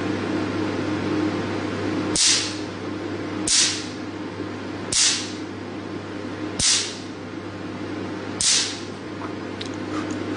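Nd:YAG picosecond laser pulses striking black test paper: five sharp snaps, about one every one and a half seconds, each with a short crisp hiss as the pulse blasts a spot off the paper. A steady machine hum runs underneath.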